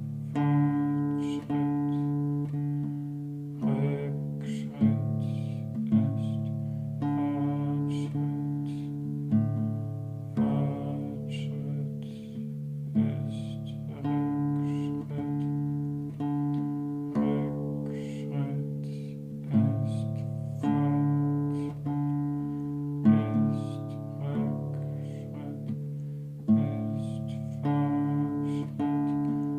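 Classical guitar laid flat across the lap, its strings plucked and left to ring so that the notes overlap into slow, sustained chords, with a fresh pluck every second or two.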